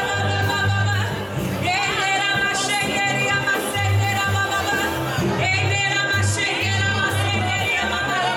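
Gospel singing with band accompaniment: voices carrying a melody over a pulsing bass line.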